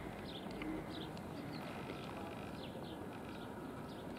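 Small birds chirping in short, high calls, several a second and irregularly spaced, over steady background noise.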